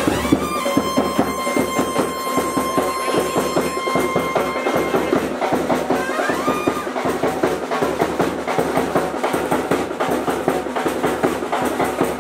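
Brass band music with dense, fast drumming, a long held note in the first few seconds and a short rising slide around the middle.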